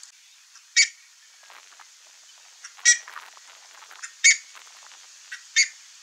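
Buff-necked ibis calling: four short, loud calls, about one every one to two seconds.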